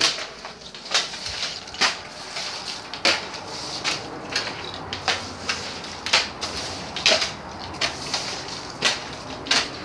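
Footsteps on a gritty concrete floor, about one step a second, each a short scuffing crunch.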